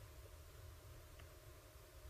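Near silence: room tone with a faint low hum and a faint click about a second in.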